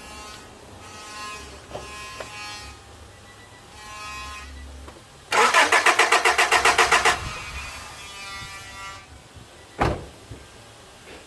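1995 Honda Civic's four-cylinder engine cranking on the starter for about two seconds, a fast even chug, without catching: a crank-no-start with no spark, no injector pulse and no fuel pressure. A single sharp knock follows near the end.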